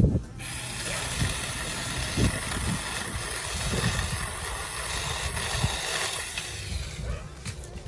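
Battery-powered Saker mini chainsaw running with a steady high motor-and-chain whine. It starts about half a second in and cuts out near the end.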